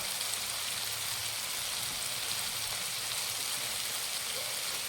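Onion and tomato masala frying in oil in a pan, a steady sizzle.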